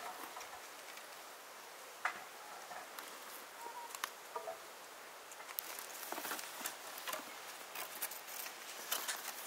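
Scattered light clicks and taps over a faint steady hiss, with the sharpest tap about two seconds in.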